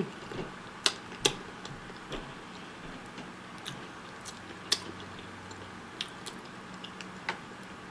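Close-up eating sounds from a seafood boil: scattered sharp clicks and smacks of mouth and food, irregularly spaced, over a faint steady hum.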